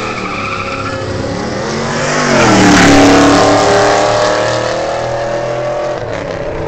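Two cars accelerating hard side by side in a street drag race, their engines rising in pitch as they come up and past, loudest about three seconds in, then fading down the road.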